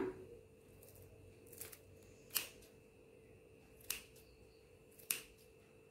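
Household scissors snipping through the stems of mung bean microgreens at their base: a few short, sharp snips spaced a second or more apart.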